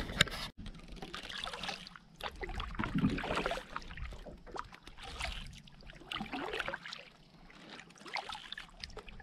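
Kayak paddle strokes in calm river water, a soft swish and drip about every one and a half to two seconds. A brief knock just at the start.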